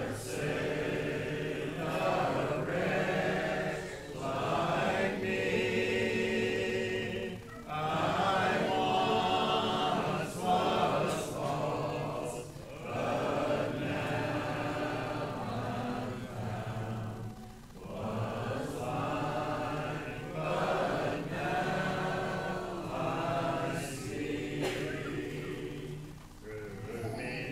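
Congregation singing a hymn a cappella, many voices together without instruments, in sung phrases with short breaks between lines.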